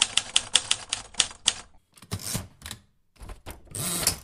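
Typewriter: a quick run of about eight key strikes, then a few looser clacks and a short rasping sweep near the end.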